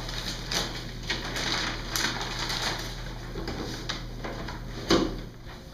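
Gift-wrapping paper crinkling and tearing as a wrapped box is unwrapped by hand, an irregular run of rustles and rips with one louder crackle about five seconds in, over a steady low hum.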